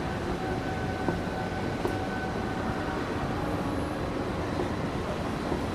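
A moving escalator runs with a steady rumble inside a busy station hall. A faint steady whine fades out about halfway through.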